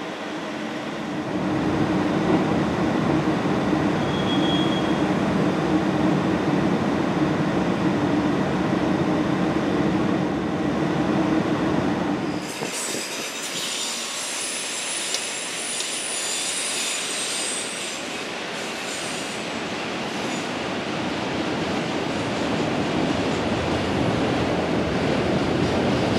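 Freight train passing: a low rumble with a steady engine tone for about the first half as the diesel locomotives go by, then rail cars rolling past with high-pitched wheel squeal from about halfway in, fading after several seconds.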